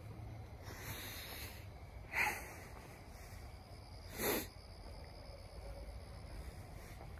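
A man's breathing: two short, sharp breaths about two seconds apart, over a low steady rumble.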